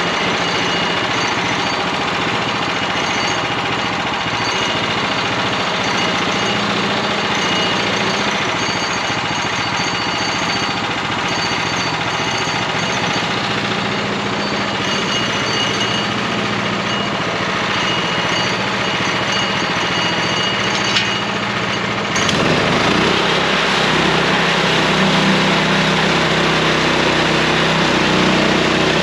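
Gas-engine bandsaw sawmill running steadily, its blade cutting through a sweetgum log. About three-quarters of the way through the sound changes abruptly and gets a little louder, with a lower engine note.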